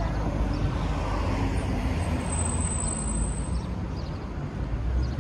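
Road traffic: cars driving past on a town road, a steady low rumble of engines and tyres that swells as a vehicle goes by about a second in.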